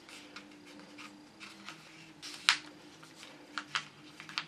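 A sheet of letter-size paper rustling and crackling as fingers fold it and press creases flat. There is one sharp paper snap about two and a half seconds in and a few smaller clicks near the end.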